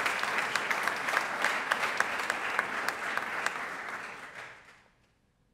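Audience applauding: dense clapping that thins out and dies away about four to five seconds in.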